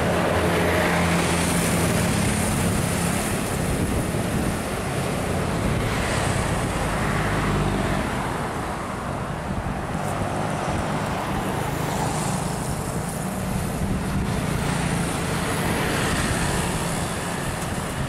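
Road traffic noise with the steady hum of a tour coach's diesel engine as it moves off down the road.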